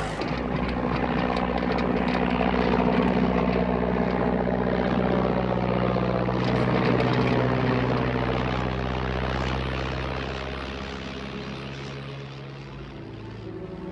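A de Havilland Gipsy Moth biplane's single propeller engine droning steadily through takeoff and low flight, fading away over the last few seconds.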